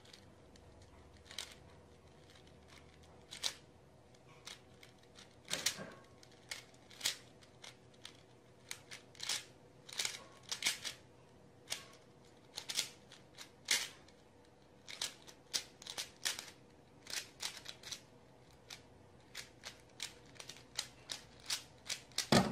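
Plastic 3x3x3 Rubik's Cube being turned during a speed solve: quick irregular clicks and clacks of its layers snapping round, coming closer together in the second half.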